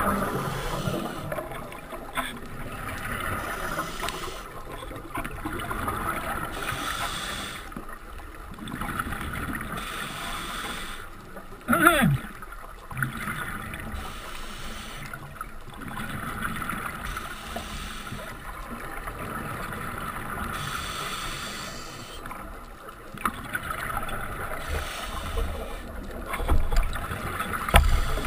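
Scuba regulator breathing heard underwater: a hissing inhale followed by a bubbling exhale, in a steady cycle of about eight breaths. About halfway through comes one short, loud, sliding squeal.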